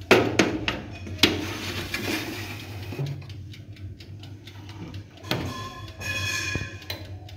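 Metal baking tray being slid onto the rack of a countertop oven: a few sharp metallic knocks and scraping, with a short ringing metal squeal near the end.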